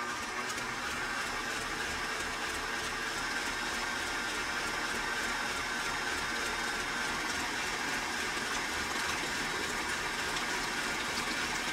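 Electric stand mixer running steadily at a raised speed, its motor and beater whirring as they beat cream cheese and sugar in a stainless steel bowl.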